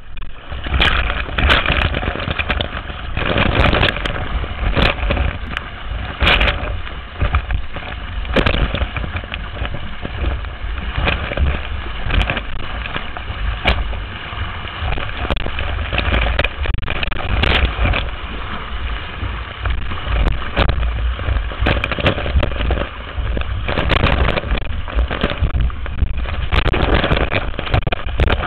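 Wind buffeting a board-mounted camera's microphone as a windsurf board planes fast over choppy water. Spray and the hull slapping the chop come through as irregular hits over a steady rush and rumble.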